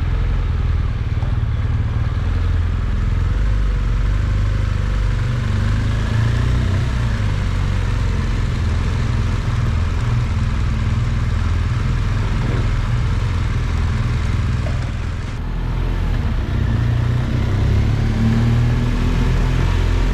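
BMW motorcycle engine running at low riding speed, a steady low note, rising in pitch near the end as the bike accelerates.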